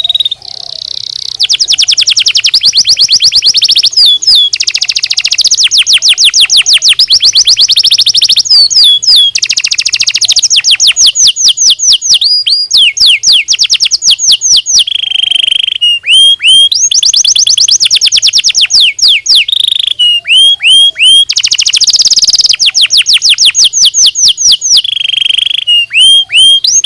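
Domestic canary singing loudly and without pause: long rolls of rapidly repeated notes, broken by phrases of sweeping, slurred whistles.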